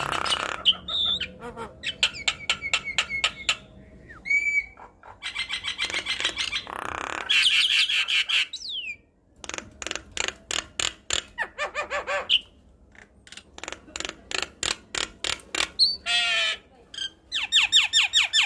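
A Javan myna singing in full voice: runs of sharp clicks and harsh chatter broken by a few short whistles, in bursts with brief pauses between.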